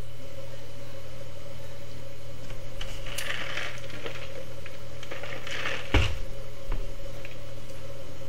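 A steady low hum of background noise runs throughout. Brief hissy noises come about three and five and a half seconds in, and a single knock about six seconds in.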